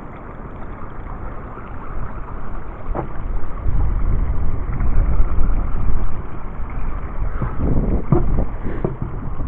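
Steady rush of a creek flowing, with wind buffeting the microphone as a low rumble in the middle, and a few short knocks near the end.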